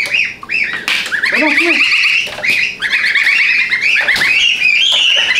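A group of goslings peeping loudly and without a break in quick, rising-and-falling chirps, with a lower call about a second and a half in.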